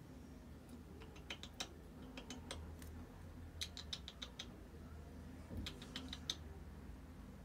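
Faint runs of quick, sharp ticks and clicks from a cage of society finches, several short clusters of a few ticks each, over a low steady hum.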